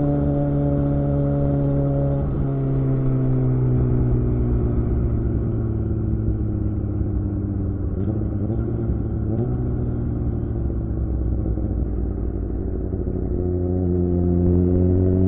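2007 Suzuki GSX-R600 inline-four running through a Yoshimura R11 exhaust while being ridden. The revs drop about two seconds in and sag slowly for several seconds, then climb again near the end.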